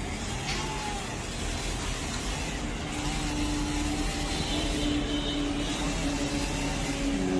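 Steady engine noise with a constant low hum that sets in about three seconds in and holds.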